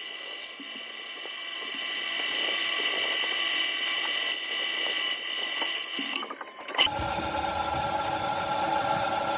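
Metalworking machine tool running with a steady high-pitched whine; about seven seconds in a sharp click, then a lower-pitched hum with a low rumble.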